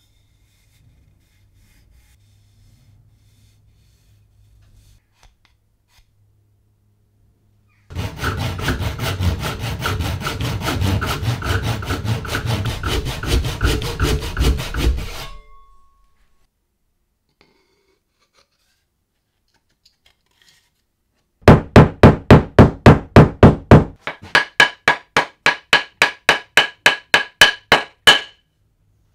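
Hand-shaping of a wooden axe handle. About eight seconds in comes some seven seconds of steady rubbing on the wood. After a pause, quick regular strokes of a hand tool across the wood follow at about four a second and stop shortly before the end.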